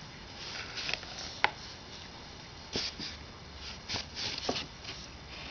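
Paper bag crinkling and rustling in short, irregular bursts as a cat shifts inside it, with a couple of sharp clicks.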